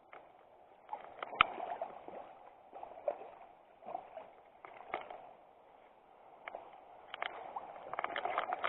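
Water sloshing and splashing in irregular bursts about once a second, with a few sharp clicks among them.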